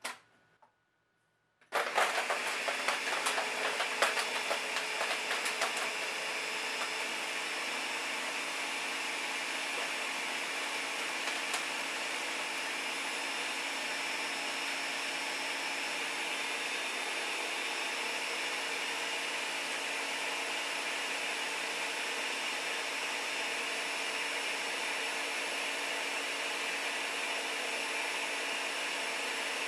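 Nutri Ninja blender starting up on frozen fruit and ice: about two seconds in the motor kicks on with the frozen pieces clattering against the blades and jar for a few seconds, then it settles into a steady, even run as the mix smooths out.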